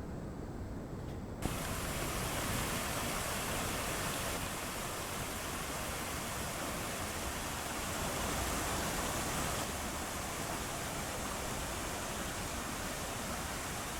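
Steady rushing noise of flowing water, cutting in suddenly about a second and a half in over a low rumble.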